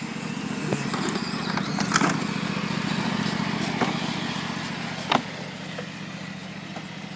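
Tractor engine running steadily, growing louder over the first couple of seconds and then fading as it passes and moves away, with a few sharp clicks along the way.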